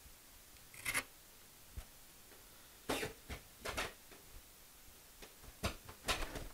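Short rustles and scrapes of hands working the thin foam fuselage skin and a scrap of paper, pressing the glued skin down against the model's frame; about five brief bursts with quiet between them.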